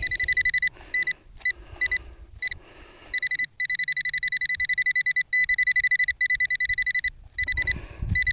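Metal-detecting pinpointer beeping: one high, rapidly pulsing electronic tone. It comes in short bursts at first, then runs almost without a break for about four seconds in the middle, signalling metal close to its tip.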